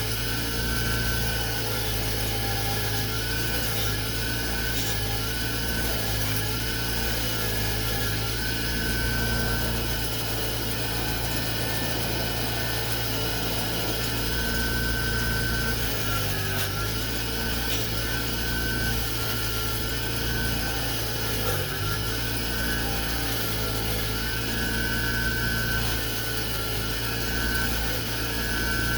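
Powered wire wheel running steadily, scrubbing forge scale off a freshly quenched, hardened steel flint striker; its pitch dips briefly a few times as the steel is pressed into the wheel.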